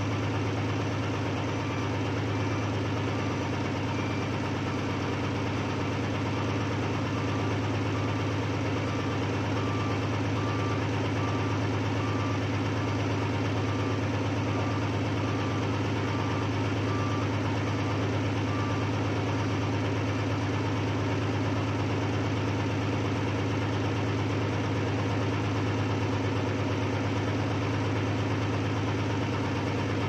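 Old backhoe engine running steadily at one constant speed, with no revving. A faint repeating beep sounds through the middle of it.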